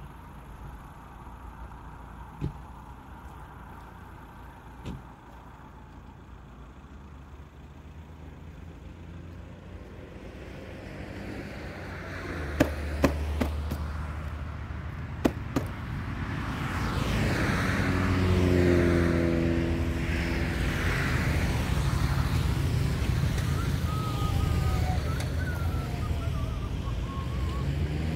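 A motor vehicle's engine, low and steady at first, then growing louder through the middle with a few sharp clicks, and staying loud.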